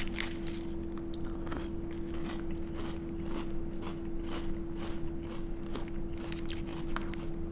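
A person chewing a mouthful of Cinnamon Toast Crunch cereal in milk, a steady run of crunches about two or three a second, over a steady hum.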